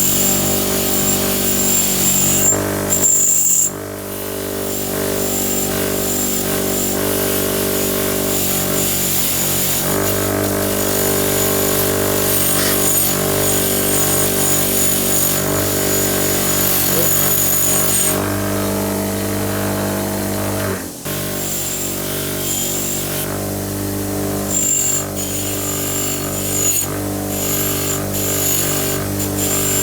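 A small electric power tool runs steadily, grinding and polishing the steel of an old adjustable wrench. Its hum holds an even pitch, broken by a few abrupt jumps in the sound.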